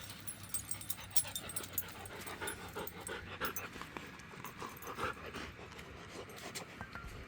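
A dog panting, with scattered light clicks and rattles throughout.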